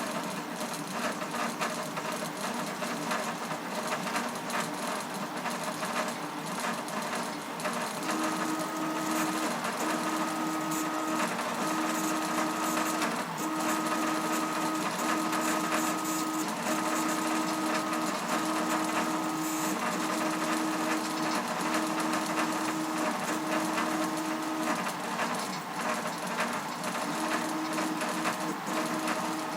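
Home-built CoreXY 3D printer running, its stepper motors making a steady mechanical noise. From about eight seconds in, a pitched motor whine comes in repeated runs of about a second each, separated by short breaks.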